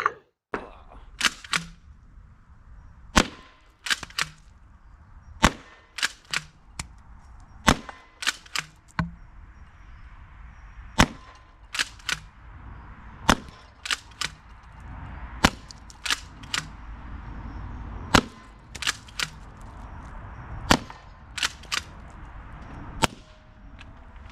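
Umarex HDX68 .68-calibre CO2 pump-action shotgun firing steel-weighted rubber balls in a steady string of about fifteen sharp shots, roughly one every second or two. Lighter clacks from the pump being racked fall between the shots.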